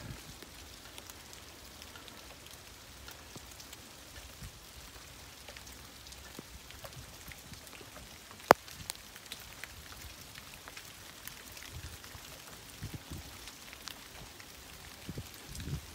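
Light rain dripping outdoors: many small scattered drop ticks over a soft steady hiss, with one sharp click about halfway through.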